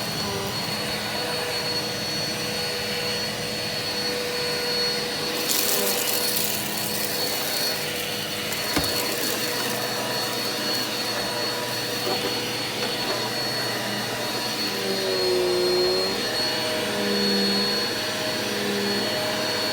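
Eureka vacuum cleaner running over carpet with a steady motor whine. About five seconds in the airflow hiss turns brighter, there is a single click a few seconds later, and near the end the motor's pitch wavers up and down.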